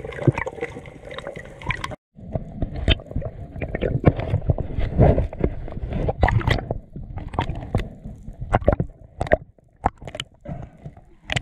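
Underwater sound as picked up through a camera housing: a muffled sloshing rumble of moving water with many scattered sharp clicks and knocks. It cuts out briefly about two seconds in and goes on duller.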